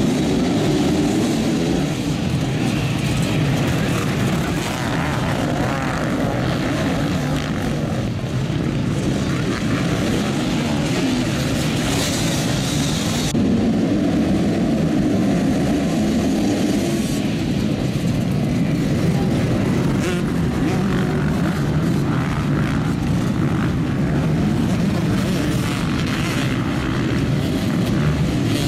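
A pack of motocross bikes revving hard together and accelerating away off the start gate in a dense wall of engine noise. The sound changes abruptly about halfway through, to another field of bikes revving at the gate and pulling away.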